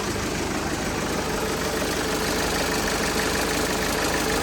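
Mercedes Sprinter's 2.1-litre four-cylinder OM651 diesel idling with a steady rattle from the exhaust that sounds scary. The noise comes from a broken catalytic converter bracket: its bolt has snapped and it has cracked, leaving the heavy converter sagging out of position.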